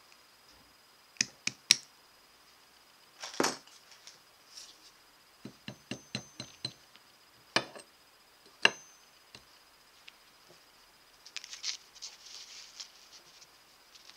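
Small jewelry hammer striking metal on a steel jewelry anvil: a few sharp taps, a quick run of about seven light taps, then two louder blows, followed by a cluster of small clinks near the end.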